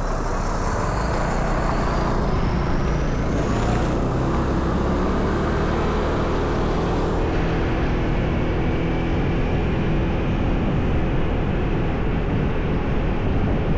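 Steady vehicle engine and road noise while riding along a street, with a faint high whine that rises in pitch over the first several seconds.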